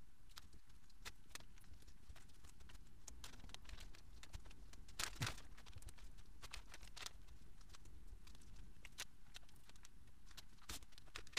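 Faint scattered clicks, taps and scrapes of hands picking apart a small plastic fiber-laser module that is filled with silicone, with one louder scrape about five seconds in.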